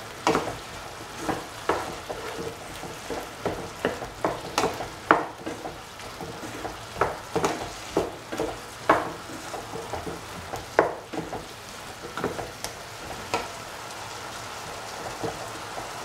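Bottle gourd pieces with tomato, shallots and garlic sizzling in oil in a pan while being stirred, with irregular clicks and scrapes of the utensil against the pan. The stirring stops about three-quarters of the way through, leaving a steady sizzle.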